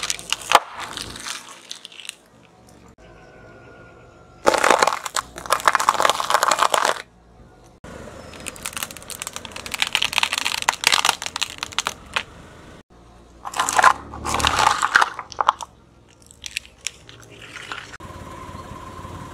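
Car tyre rolling over and crushing plastic objects: several separate bursts of crunching and crackling. About ten seconds in, a plastic computer keyboard cracks under the tyre.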